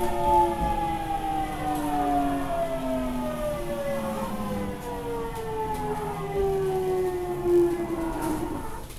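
JR Central 373 series electric train's traction motors whining, heard from the deck of the motor car: several tones fall steadily in pitch as the train brakes for a station stop, dying away near the end as it comes to a halt.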